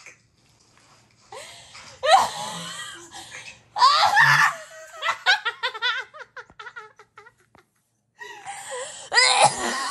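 Young women laughing hard in fits: loud, high shrieks of laughter about two and four seconds in, a quick run of ha-ha pulses, a short pause, then laughing again near the end.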